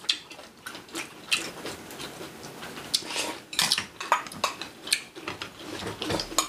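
Eating at the table: a spoon and other utensils clicking and scraping against dishes, in scattered short clicks.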